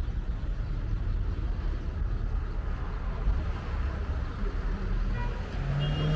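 Steady street-traffic rumble from passing vehicles, low and continuous, with a couple of brief high chirps near the end.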